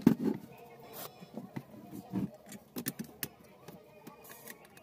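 Clicks and knocks of porcelain fuse holders and a bulb holder being handled and screwed down onto a board with a screwdriver, a sharp knock loudest at the very start, then scattered smaller taps.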